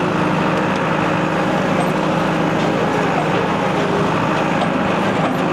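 The four-cylinder diesel engine of a John Deere 5520 tractor running steadily as the tractor drives along a woods track, heard up close from the operator's seat. A few faint clicks and rattles come through over the engine.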